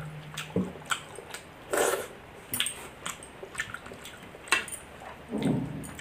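Close-miked eating sounds of milk rice being chewed: wet lip smacks and sharp mouth clicks every second or so, with two low muffled swells, about two seconds in and again near the end.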